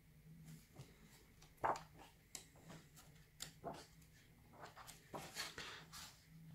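Faint paper rustles as the pages of a large old hardback cookbook are handled and turned. There are a few short rustles, the loudest about a second and a half in, over a faint steady low hum.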